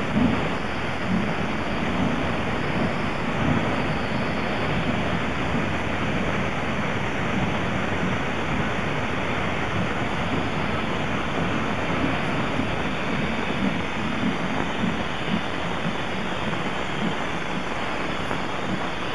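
Steam locomotive (2-8-0) blowing off steam from low on its side in a loud, steady rushing hiss.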